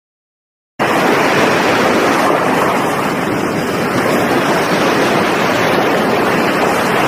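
Loud, steady rushing noise that cuts in abruptly about a second in, after a moment of silence.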